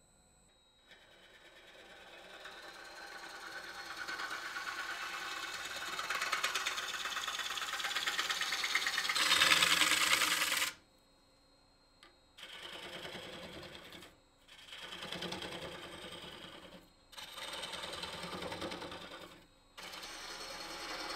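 Bowl gouge cutting a spinning dry ambrosia maple bowl blank on a Laguna wood lathe, a steady rasping hiss of shavings coming off the face. The cut grows louder over the first ten seconds and stops abruptly. It then comes back in four separate stretches of a couple of seconds each.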